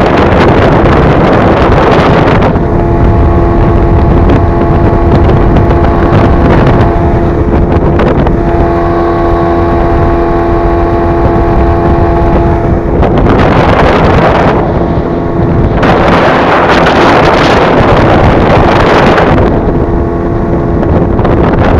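Outboard motor running steadily at speed, driving an inflatable boat across open water. Wind buffets the microphone hard, and the gusts drown out the engine's tone near the start and for several seconds in the second half.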